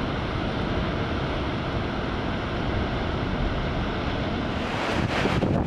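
Heavy storm surf breaking against coastal rocks, a steady wash of noise. About four and a half seconds in it gives way to gusty wind buffeting the microphone.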